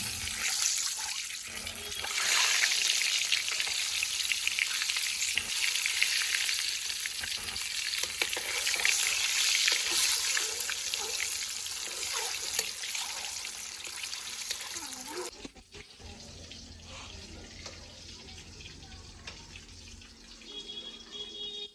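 Food sizzling in hot oil in a pan, a dense crackling hiss that cuts off suddenly about fifteen seconds in, after which it is much quieter.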